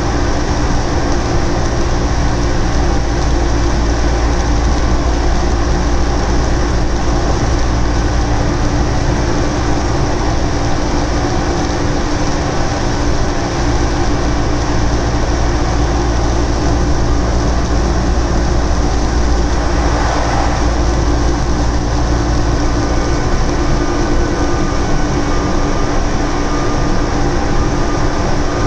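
Orlyval VAL automated light-metro train running at speed on its rubber tyres, heard from inside the car: a steady rumble of tyres on the guideway with a constant hum.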